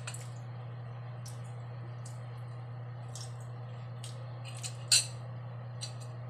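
Eating sounds: faint clicks while chewing and a fork clinking on a plate, the loudest clink about five seconds in, over a steady low hum.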